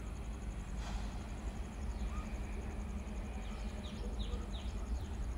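Birds calling, with a quick run of short, high, descending chirps about three and a half to four and a half seconds in. Beneath them run an insect's high, steady pulsing drone and a low, continuous rumble.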